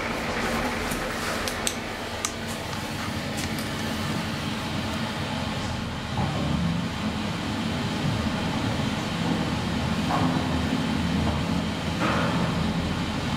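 SMW traction elevator car travelling down its shaft: a steady mechanical hum with ventilation noise. A few sharp clicks come in the first seconds as the sliding glass doors shut, and the running grows slightly louder about halfway through.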